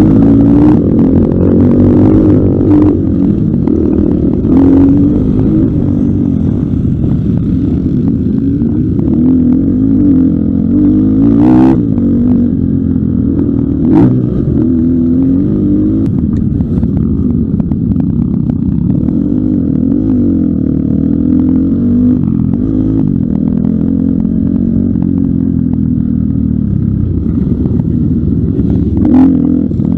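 Pitster Pro LXR250f 250cc four-stroke dirt bike engine at race pace, heard from on board. It revs up and drops back again and again as the throttle opens and closes through gears and turns, with a few sharp knocks along the way.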